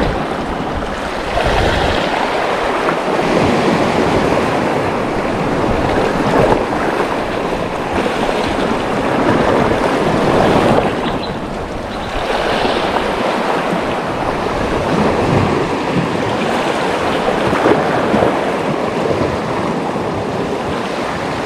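Sea surf washing in, a steady rushing noise that swells and eases every few seconds, with some wind on the microphone.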